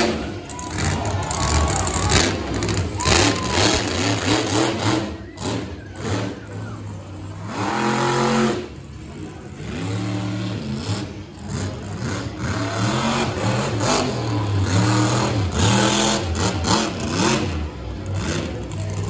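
Monster truck engine revving hard, its pitch climbing and dropping again and again as the truck is driven through a freestyle run.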